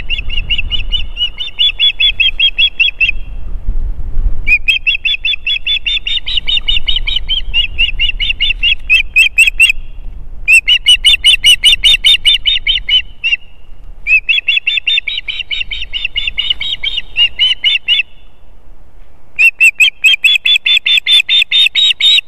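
Female osprey calling: rapid series of high, whistled chirps, about five a second, in bouts of a few seconds with short pauses between. The insistent calling is typical of a female begging for the male to bring fish.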